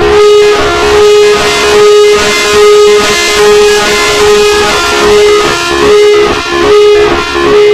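Outdoor warning siren sounding a steady two-tone note, swelling and fading in loudness about once a second.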